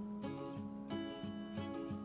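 Background music with guitar, its notes changing in a steady rhythm.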